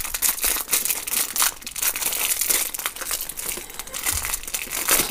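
Crinkly plastic wrapper of a trading-card pack crackling and crinkling as it is pulled open and handled, a dense run of quick crackles.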